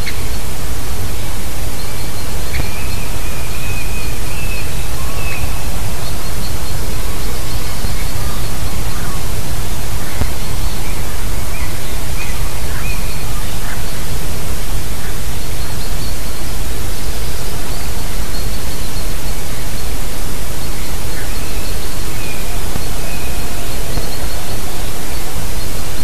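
Loud steady hiss with no rises or falls, over faint high chirps of small birds now and then.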